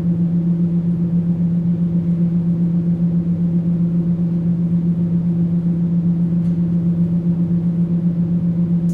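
Electric welding machine humming steadily on one low pitch, its level wavering quickly.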